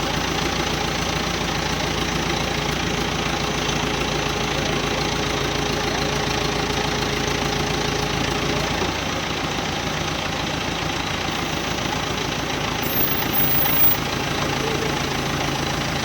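An engine idling steadily, with a continuous mechanical hum; its deepest low rumble drops away about nine seconds in.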